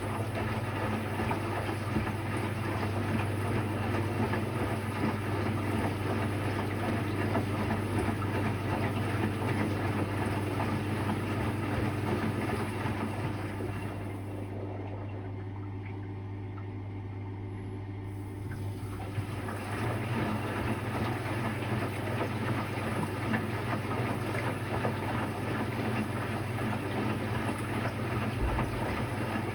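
Electrolux Quickwash commercial washing machine running, a steady low hum under rushing water, dropping quieter for a few seconds about halfway through.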